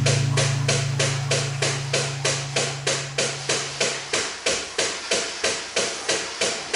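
Background music with a steady beat of sharp percussive hits, about three a second, over held bass notes that drop out about four seconds in.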